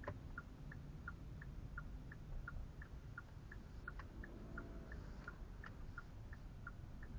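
Car turn-signal indicator ticking inside the cabin, about three clicks a second alternating between a higher and a lower tick, over a low steady engine and road rumble.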